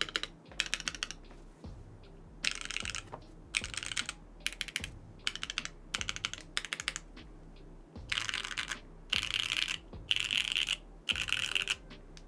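BakenekoGO mechanical keyboard in a polycarbonate case being typed on, in quick bursts of keystrokes with short pauses between; the last few bursts are faster and denser.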